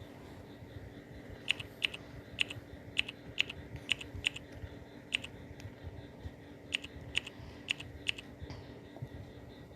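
About a dozen short, sharp clicks at an uneven pace, with a pause in the middle, over a faint steady hum.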